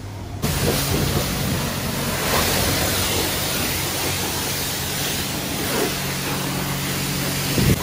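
Self-service car wash pressure washer switching on about half a second in and spraying steadily: a loud, even hiss of water over a low pump hum.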